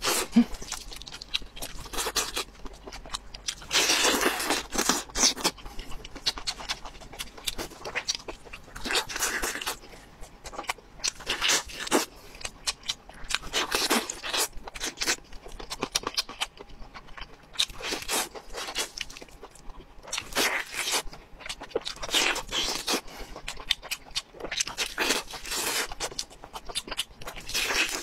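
Close-up eating sounds: meat being torn off a roasted bone with the teeth and chewed, in irregular bursts of biting, tearing and chewing.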